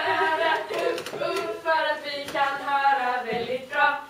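A small group of girls singing together without accompaniment, in phrases of held notes.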